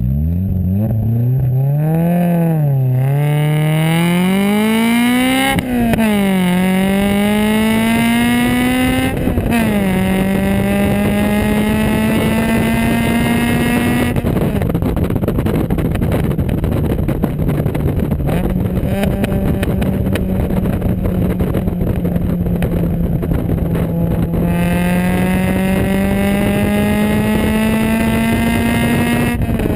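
Toyota 4A-GE four-cylinder engine in a Triumph Spitfire heard at the exhaust tip, revving hard from a standstill. Its pitch climbs steeply and drops sharply twice as it is shifted up through the gears. It then eases off to a steady cruise with wind buffeting the microphone, and pulls up again near the end.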